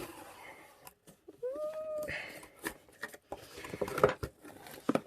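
Paper and packaging rustling and crinkling, with sharp clicks and taps, as a subscription box is opened and its contents handled.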